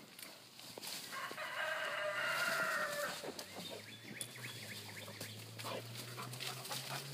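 A dog rustling and pushing through a pile of cut tree branches, with scattered twig snaps and leaf rustles. About a second in, a drawn-out animal call sounds for around two seconds, the loudest thing heard, and a low steady hum comes in around the middle.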